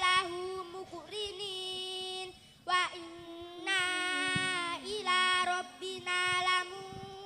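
A boy chanting the Arabic prayer for boarding a vehicle into a microphone, sung as a melody in several phrases with long held notes and short pauses between them.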